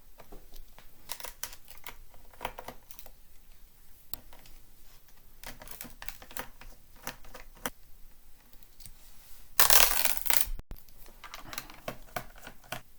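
Small clicks, clinks and scrapes of hands and tools working on a laptop's plastic bottom case during disassembly. About ten seconds in comes a louder scraping rustle lasting about a second.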